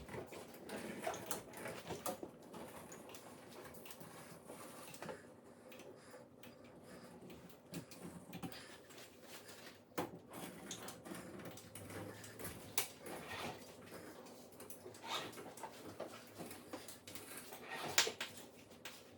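Scattered light clicks and small knocks from hand-caulking work: handling a caulk gun and tools while running sanded tile caulk along the countertop-to-backsplash joint. There is a sharper click about ten seconds in and another near the end.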